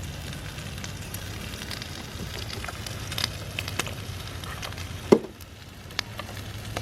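Bacon frying on a wood-fired Hobo stove, a steady sizzle with scattered crackles and pops from the burning wood, and one louder knock about five seconds in.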